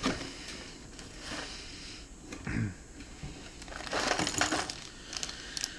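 A cardboard box being opened and handled: the flaps and packaging rustle and scrape in scattered bursts. The busiest rustling comes about four seconds in.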